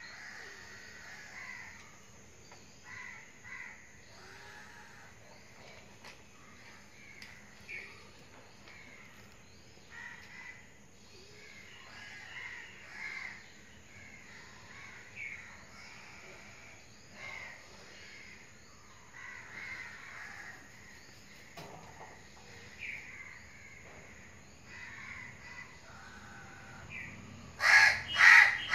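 Birds calling in the background, short calls repeating every second or so, with a louder burst of calls near the end.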